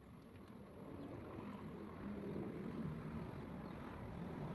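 A motor running with a low hum, growing steadily louder.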